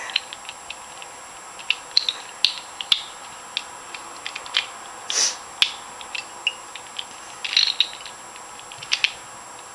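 Plastic clicking and snapping of Rubik's cube pieces being handled and pressed into a DIY cube kit, irregular small clicks with a few louder snaps.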